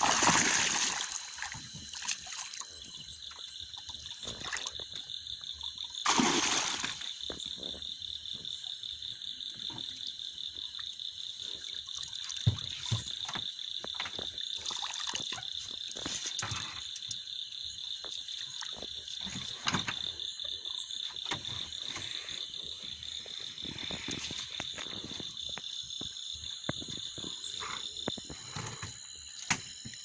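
A cast net being hauled out of river water, splashing loudly at the start and again about six seconds in, then smaller drips and knocks as the wet mesh is gathered. Behind it runs a steady, high, fast-pulsing trill of frogs.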